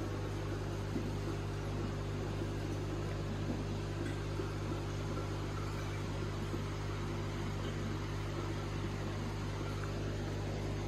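Aquarium equipment running: a steady low hum with a faint even hiss.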